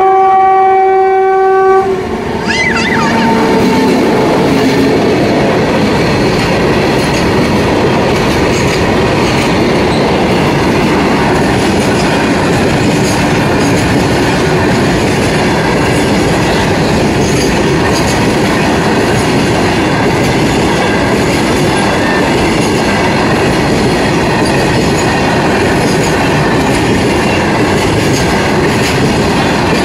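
Freight train's locomotive horn sounding for about two seconds, ending in a fainter, lower tone. Then covered goods wagons rolling past close by: steady wheel-on-rail noise with a regular clickety-clack over the rail joints.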